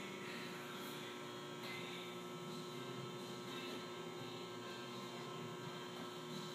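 Faint, steady electrical hum with a low background haze; the sit-ups themselves make no clear sound.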